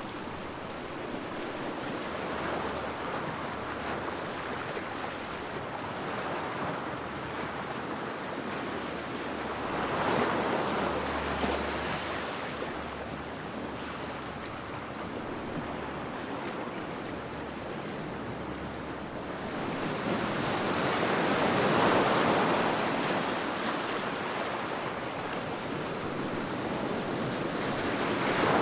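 Sea waves breaking on a beach: a continuous surf wash that swells louder as bigger waves come in, about ten seconds in, again past the twenty-second mark, and at the end.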